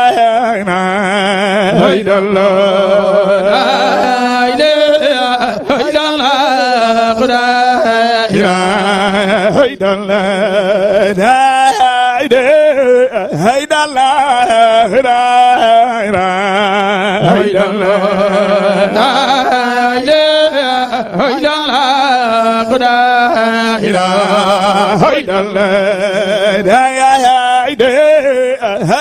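A man chanting Islamic zikr (dhikr) in long, ornamented melodic phrases with a strong vibrato on the held notes.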